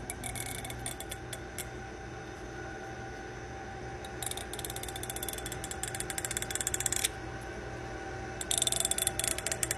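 A finger run along the teeth of a small comb, making runs of fast rattling clicks: a scattered run at the start, a long one in the middle and another near the end. This comb-teeth sound is said to make cats gag.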